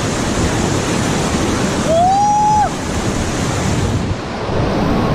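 White-water rapids rushing and splashing around a raft, with wind buffeting the microphone. One brief held yell about two seconds in.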